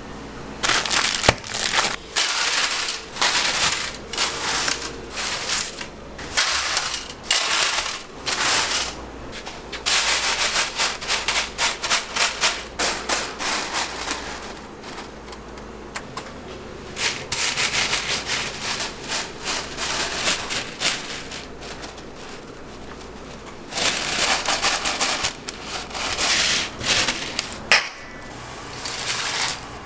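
Dry spaghetti being handled on a stainless steel tray: stiff strands rubbing, sliding and rattling against each other and the metal in irregular bursts, with a few quieter pauses.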